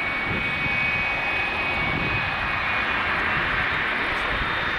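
Boeing 777-300 jet engines running steadily on the runway: a continuous rumble with a high, steady whine that fades about halfway through.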